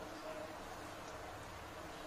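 Faint, steady background hiss with no distinct event, only a slight soft sound about a quarter second in.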